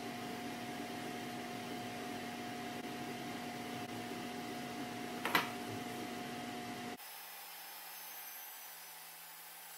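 Steady mechanical hum of a running machine with a noisy rush and two steady tones, and one sharp tap just over five seconds in. About seven seconds in the hum cuts off abruptly and a quieter, lower hum takes over.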